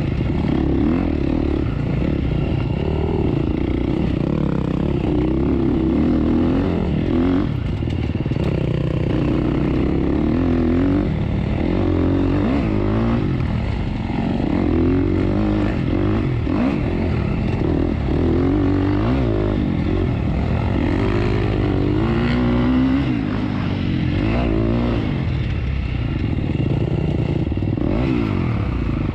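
Dirt bike engine revving up and down over and over as it is ridden over rough off-road ground, its pitch rising and falling every second or two with the throttle and gear changes.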